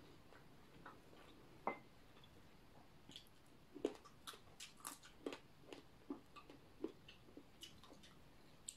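Quiet eating sounds from someone eating by hand: a scatter of small clicks and smacks from fingers, food and plate, and from chewing, bunched in the middle few seconds.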